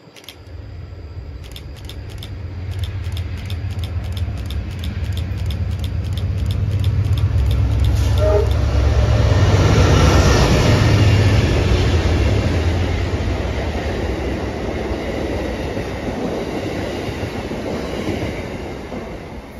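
Amtrak GE P42DC diesel-electric locomotive leading a passenger train past at speed: engine and rail rumble building up, loudest about ten seconds in as the locomotive goes by, then easing off as the passenger cars roll past with a clickety-clack of wheels on rail joints.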